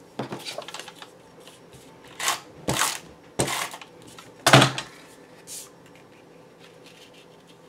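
Glue Glider Pro adhesive tape runner rasping across the back of a paper card in four short strokes, then a fainter fifth, after a second of light paper rustling and taps.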